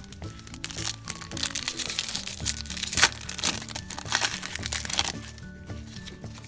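Wrapper of a Topps baseball card pack crinkling and tearing as the pack is opened by hand, with a sharp loud crackle about three seconds in. Background music plays underneath.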